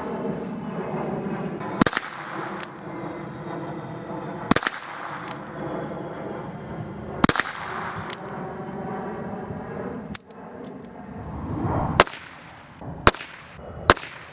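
Ruger Wrangler .22 LR single-action revolver fired three times, slowly, about two and a half seconds apart, each shot followed by a fainter click. Near the end come three more sharp cracks.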